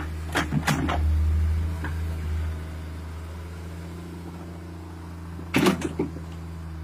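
Sumitomo hydraulic excavator's diesel engine running with a steady low drone that swells under load from about a second in while the bucket digs. Sharp knocks come twice in the first second and again as a short cluster near the end.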